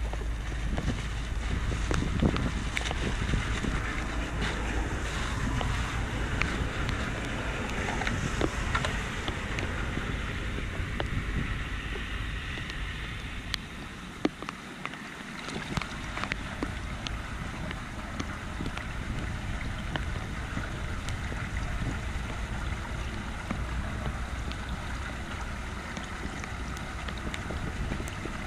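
Hands splashing in shallow floodwater and pulling wet grass and twigs out of a clogged curbside storm drain inlet, with many small splashes and scrapes, as the cleared drain starts to take in running water. Wind rumbles on the microphone.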